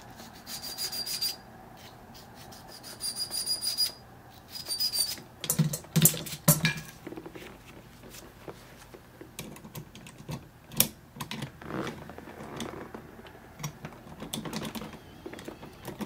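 A few rasping strokes of a file across the key blank, with a thin high whistle in them, clearing off the drag tails (burrs) left by impressioning. Then sharp clicks and knocks of the key and tools being handled and set down.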